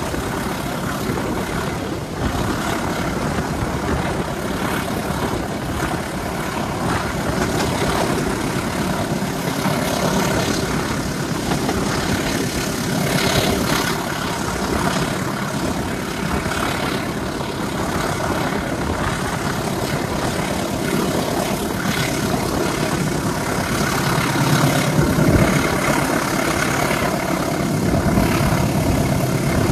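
Diesel engine of a CC203 diesel-electric locomotive running steadily under load, heard from the train it is pulling, mixed with the steady noise of the moving train.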